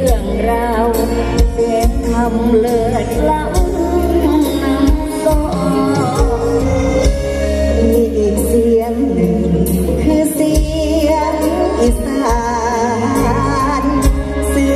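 Amplified live mor lam music: a singer's wavering, ornamented vocal line over a band with a steady deep bass beat.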